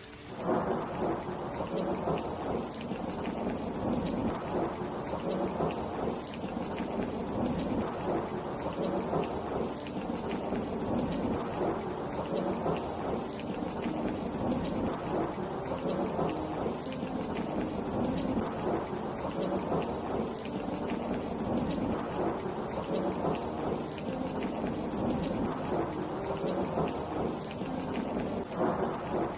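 Heavy rain falling steadily, with a deep rumble of thunder running under it.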